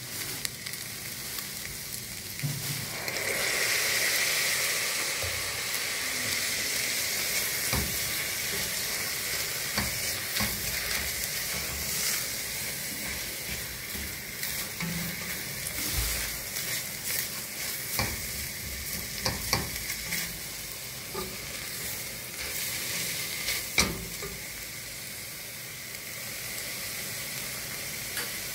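Shredded boiled chicken and onion sizzling in a stainless steel pot while being stirred with a silicone spatula, with many small scrapes and taps against the pot. The sizzle swells louder about three seconds in.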